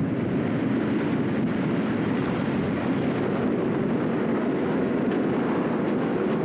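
Steady, loud rushing roar of tornado wind, an even rumble without pitch, like a passing freight train.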